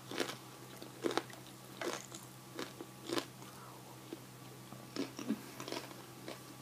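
Close-up chewing of crisp fried tortilla: separate crunches, roughly one a second.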